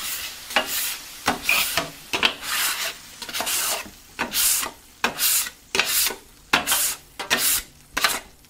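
A scraper worked in repeated strokes, roughly one to two a second and faster near the end, across the hot top of a Vevor 22-inch flat-top griddle, loosening burnt-on residue in water poured on for a steam clean.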